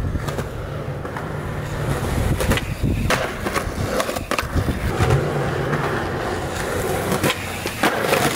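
Skateboard wheels rolling over asphalt and concrete sidewalk with a steady rumble, broken by several sharp clacks of the board.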